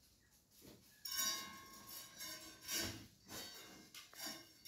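Several light clinks and knocks, the first followed by a short ringing tone.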